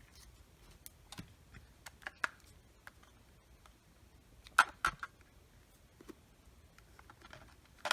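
Light plastic clicks and taps from handling a cordless phone handset and its battery compartment, a few faint ones at first and a louder pair of clicks about four and a half seconds in.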